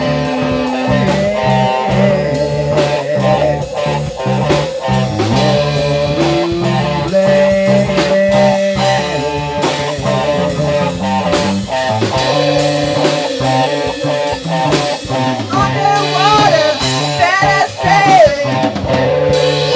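Rock band jamming: guitars, bass guitar and drum kit over a steady drum beat. Near the end a high line slides and wavers in pitch.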